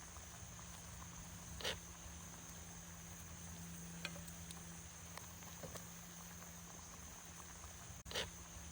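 Campfire crackling: a few sharp pops, the loudest about one and a half seconds in and again near the end, over a steady soft hiss and a high steady whine.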